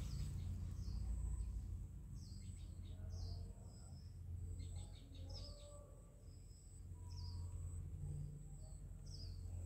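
Small birds chirping: short, mostly downward chirps every second or so, with a quick rattling run about halfway through, over a steady low rumble.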